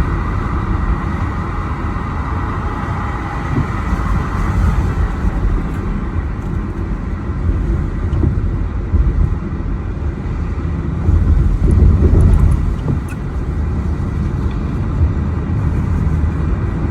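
Car driving: a steady low road and engine rumble that swells louder for a second or two about eleven seconds in.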